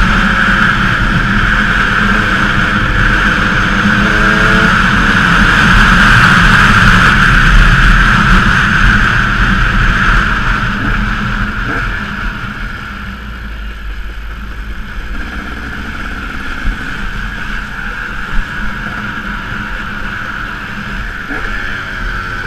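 Enduro dirt bike engine running at speed under the bike-mounted camera, with heavy wind rush over it. The bike eases off about halfway and the sound drops to a lower, steadier run, with a couple of small knocks from the bike on the track near the end.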